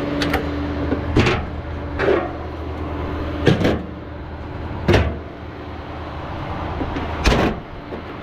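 A series of about seven sharp clunks and knocks, irregularly spaced, over a steady low engine hum.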